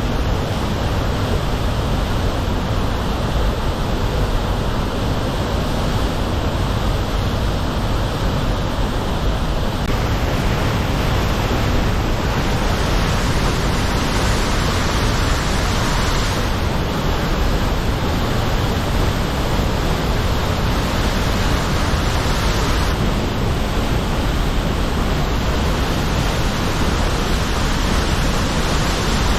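Waterfall in spate, swollen with high water: a loud, steady rush of falling water. Its hiss brightens and dulls a few times.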